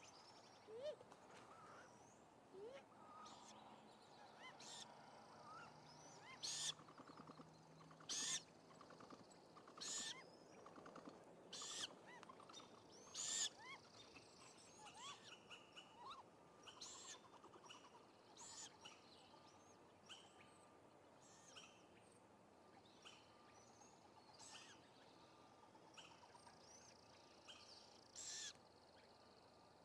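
Owlet giving short, hissing calls over and over, about one every one and a half to two seconds, faint throughout and fading toward the end.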